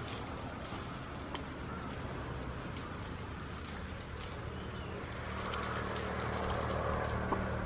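Outdoor ambience of a tree being climbed: leaves and branches rustling with a couple of sharp twig snaps, over a steady high insect drone. A low engine hum grows louder over the last couple of seconds.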